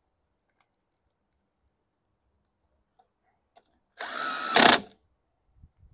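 Cordless DeWalt driver with an 8 mm socket spinning briefly to run down a bolt on the mower engine's sheet-metal shroud: one burst of about a second, about four seconds in, with a motor whine and louder at the end.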